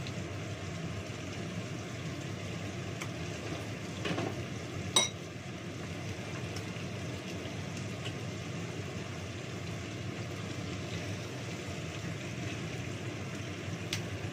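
Steady sizzling of food frying in a pan on the stove, with a sharp metallic clink about five seconds in.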